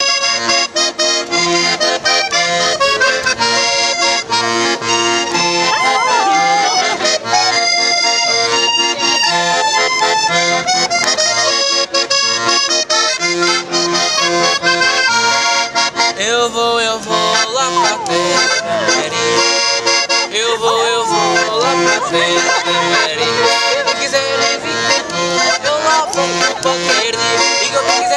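Piano accordion playing a tune over a regular bass-and-chord beat. From about halfway through, a small dog howls along in wavering notes that slide up and down.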